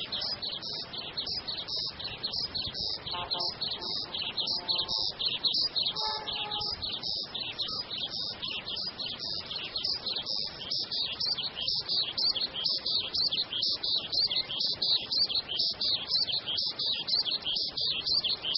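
Rapid, continuous high-pitched chirping, several short chirps a second without a break, with a few fainter, lower calls about three to six seconds in.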